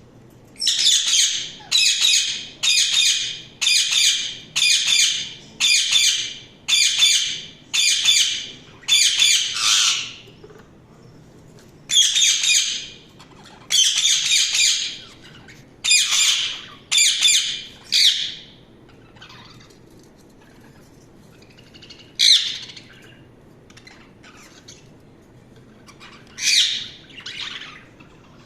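Budgerigar giving loud, harsh calls over and over, about one a second for the first ten seconds. Shorter runs follow, then only a few single calls near the end.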